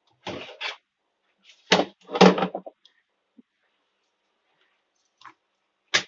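A few short knocks and clatters from a semi-automatic washing machine's plastic body being handled: two clusters in the first seconds, then two brief single knocks near the end.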